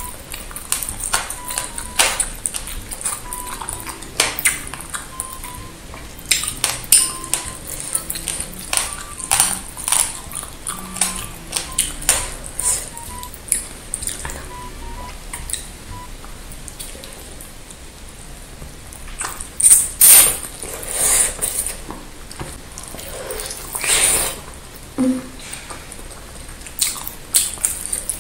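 Close-miked mouth sounds of someone eating a large meatball in spicy broth: a steady run of wet smacks and sharp clicks from chewing and lips, with a few louder bursts about two-thirds of the way through. Faint background music plays underneath.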